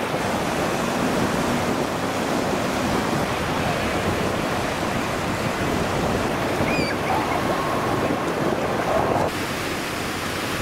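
Small waves breaking and washing through shallow water, a steady surf noise with wind on the microphone.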